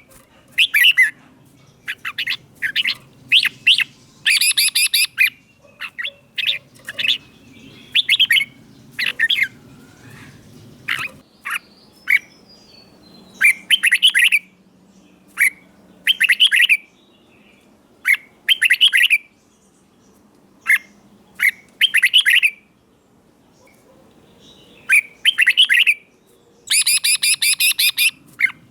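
Red-whiskered bulbul singing its short, clear phrases again and again, with gaps of a second or so between them, broken by a few harsher, louder calls.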